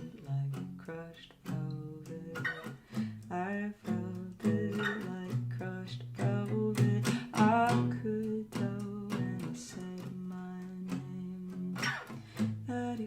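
Plucked guitar playing a stripped-down pop song, with a woman's singing voice coming and going over it.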